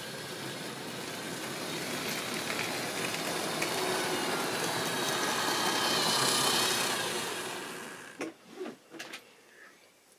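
Model railway train running past close by: the locomotive's motor and the wheels on the track make a steady rattling run that builds, peaks about six seconds in and fades away by eight seconds. A few short sharp clicks follow near the end.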